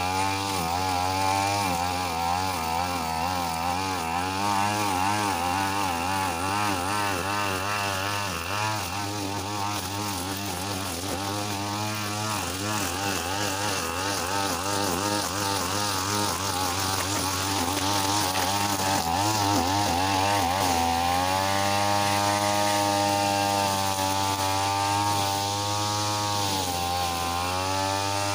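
Backpack brush cutter with a nylon string head running at high revs while cutting grass. Its engine pitch wavers continuously up and down with throttle and load, and becomes higher and steadier for the last several seconds.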